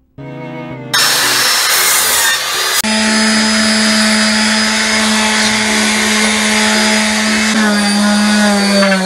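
Handheld electric orbital sander running on a wooden board: a steady motor hum under the rasp of sandpaper on wood, starting about a second in. The hum's pitch drops slightly near the end.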